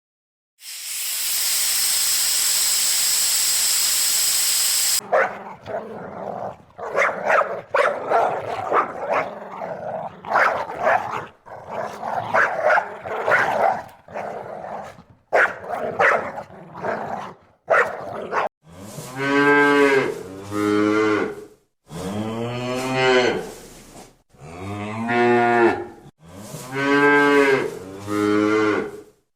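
Cattle mooing: repeated drawn-out calls, often two close together, in the second half. Before them comes a steady hiss of several seconds, then a stretch of shorter, busier animal calls.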